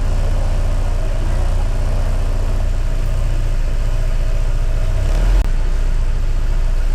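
Honda ADV 160 scooter's single-cylinder engine running with a steady low rumble, with a brief dropout about five and a half seconds in.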